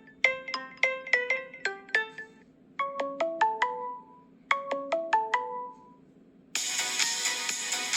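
Samsung Galaxy S7 preloaded ringtones playing: a melody of short, quickly fading notes ends about two and a half seconds in. A short phrase of about five notes follows, played twice with a pause after each. A fuller, denser ringtone tune cuts in near the end.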